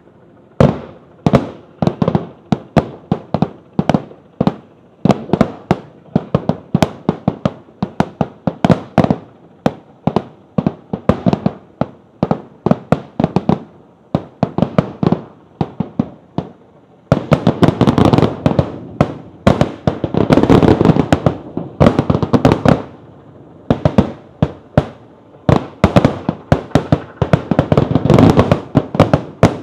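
Fireworks display: aerial shells bursting one after another, several bangs a second. From about halfway through they merge into a dense barrage of overlapping bangs, which eases briefly and then builds again near the end.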